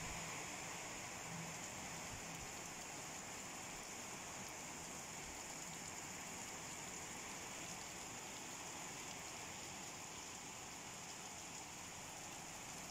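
Light rain falling steadily, an even hiss of rain.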